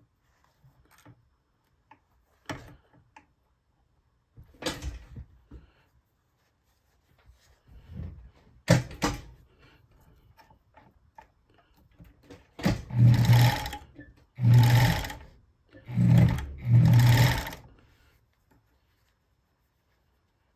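Bonis Never Stop fur sewing machine running in four short spurts of about a second each, stitching the leather and beaver fur of a mitt. Before them come a few scattered clicks and knocks as the work is handled at the machine.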